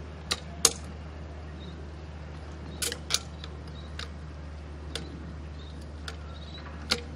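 About eight sharp clicks at irregular intervals, the loudest near the start, over a steady low hum: the working of a dual-cartridge dispensing gun as two-part polyurethane foam is pushed into holes in a boat deck.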